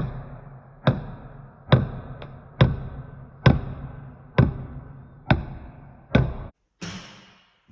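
Heavy sloshing thuds of oil surging back and forth, one about every second, each followed by a short wash. They stop about six and a half seconds in, and a brief rushing noise follows.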